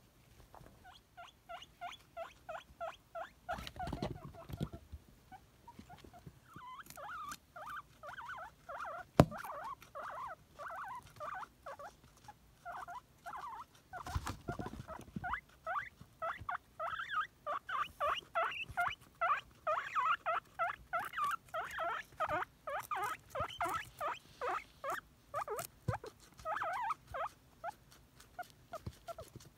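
Guinea pig wheeking: long runs of short, high squeaks at about three a second, the excited call of a guinea pig begging for a celery treat. A sharp click sounds about nine seconds in, and brief low rustles come at about four and fourteen seconds.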